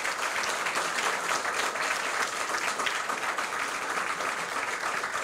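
A large indoor audience applauding: many people clapping steadily.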